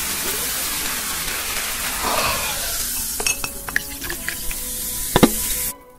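Cola poured from a can into a glass mug: a steady splashing hiss of liquid and foam, thinning after about three seconds into fizzing carbonation with scattered sharp clicks of popping bubbles, the loudest just after five seconds. It cuts off suddenly near the end.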